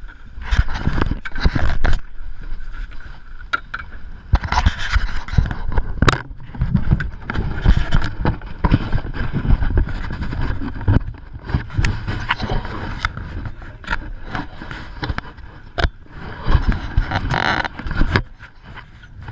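Chest-mounted GoPro housing scraping and knocking against the wearer's clothing and harness as he moves, in an irregular string of rubs and bumps with low rumble on the microphone.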